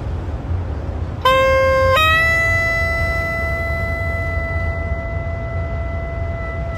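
Low clarinet playing. One note starts about a second in, then steps up to a higher long note that is held steadily for the rest, over a steady low rumble.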